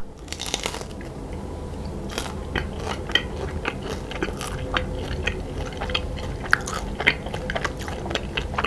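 Close-miked ASMR eating of a homemade jelly eyeball candy: a sharp knock at the very start, then biting and chewing with many small wet clicks and crunches.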